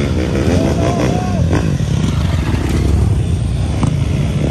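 Dirt bike engines revving hard under load as riders attempt a steep dirt hill climb.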